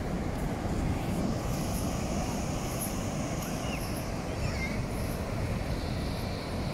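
Ocean surf from large waves with wind on the microphone: a steady, even rumble.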